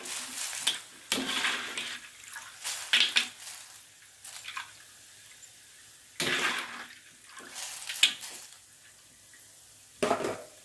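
Wire mesh strainer scooping crisp fried crackers out of oil in an aluminium wok: several short bursts of scraping, rattling crackers and splashing oil, with oil draining back into the wok between them.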